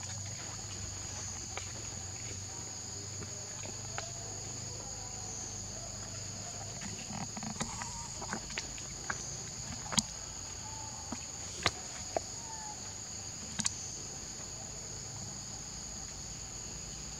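A steady, high-pitched insect chorus drones throughout, with a handful of sharp clicks in the second half, the loudest about ten and twelve seconds in.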